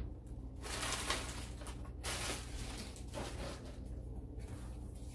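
Handling and packaging noise as kitchen items are unpacked: several short rustling, sliding swishes about a second apart over a steady low hum.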